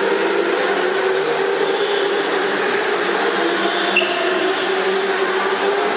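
Go-karts racing around a track: a steady mechanical hum with faint high whines that rise and fall as karts pass.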